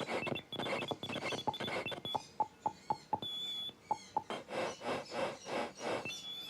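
Small electronic synthesizer playing a glitchy rhythmic pattern: short blips and clicks about four a second, bursts of noise, and a high steady whine that cuts in and out.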